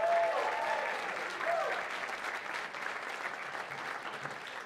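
Audience applauding after a band-member introduction, with a couple of short calls from the crowd in the first two seconds; the clapping dies down toward the end.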